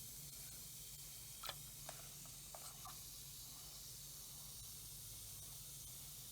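Quiet room with a faint steady hiss, broken by a few small faint clicks between about one and a half and three seconds in.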